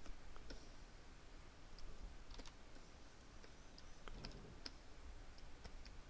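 Faint, irregular clicks from a computer input device being worked during digital sculpting, over a low steady hum.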